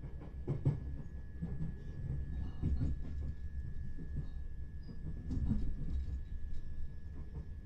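Interior running noise of a Southern Class 377 Electrostar electric multiple unit on the move: a steady low rumble with irregular clatter of the wheels over rail joints and pointwork, loudest about a second in and again near five and a half seconds, and a faint steady high tone throughout.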